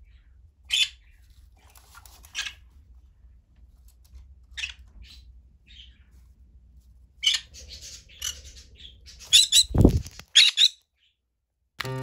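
Green-cheeked conure giving short, loud, harsh contact calls at irregular intervals, coming faster near the end: the bird calling for its budgie companions because it cannot see them. A low thump comes about ten seconds in, and piano music starts at the very end.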